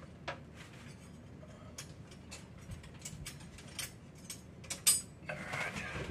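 Small irregular clicks and knocks of kitchen items being handled, with one louder click about five seconds in and a short rustle after it.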